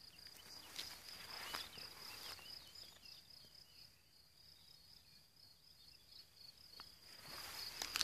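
Faint, steady high-pitched chirring of insects in a meadow, with rustling footsteps through tall grass in the first couple of seconds and again near the end. A few faint bird chirps come in early on.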